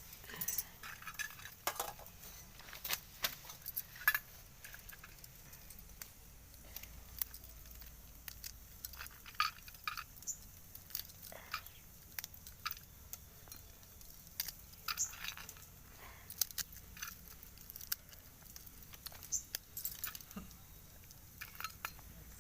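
Irregular light clicks, clinks and knocks of cooking utensils and vessels being handled.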